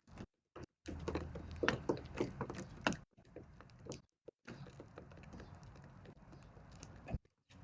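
Eurasian tree sparrows pecking at castella sponge cake on a feeder: irregular light taps and knocks, busiest in the first few seconds.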